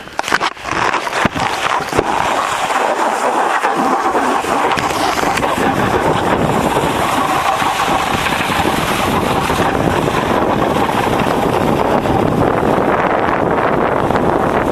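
Snowboard sliding and scraping over packed snow, with wind buffeting the microphone. A few sharp knocks and clicks in the first two seconds, then a steady rushing noise as the board runs downhill.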